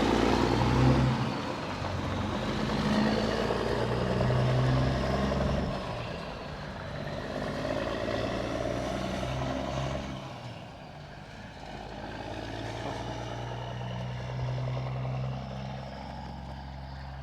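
Semi truck's diesel engine running as the truck pulls away, growing fainter over the second half.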